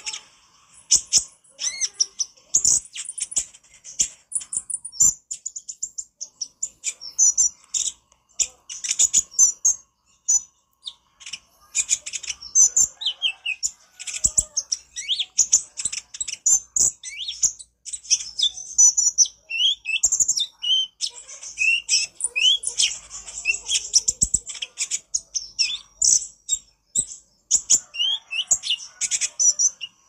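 Male kolibri ninja (konin) sunbird in full song (gacor), a fast, busy, near-unbroken chatter of very high, sharp chirps and trills, with short quick upslurred whistles mixed in from about halfway through.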